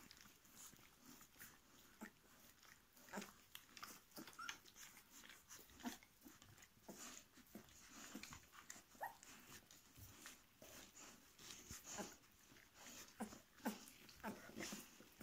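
Faint sounds of a litter of 13-day-old puppies nursing and shuffling: scattered tiny squeaks and whimpers among soft snuffling, small clicks and rustling.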